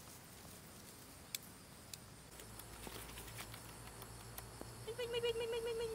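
A puppy whining: one held, fairly high note about a second long near the end, after a few faint clicks.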